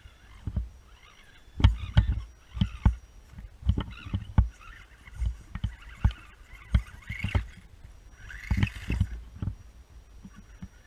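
Radio-controlled scale crawler climbing over a mossy tree stump: irregular knocks, scrapes and rustling of its tyres and chassis on bark and moss, with a thin high whine at times and a longer rasping stretch about eight seconds in.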